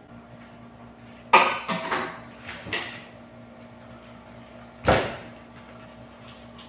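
Kitchen clatter from things being handled: a quick run of knocks and rattles about a second in, then one heavier thud about five seconds in, over a faint steady hum.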